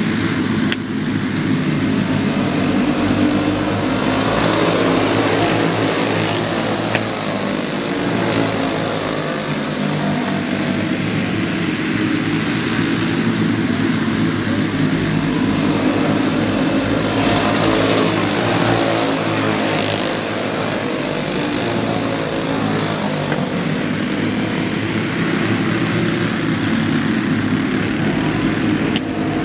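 A pack of dirt-track racing go-karts running around the oval, their small engines buzzing at high revs, swelling and fading as the karts come past.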